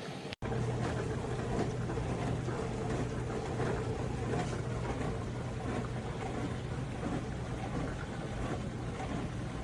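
A small appliance running steadily: a constant low motor hum under a rushing noise. It cuts in after a very short gap just after the start.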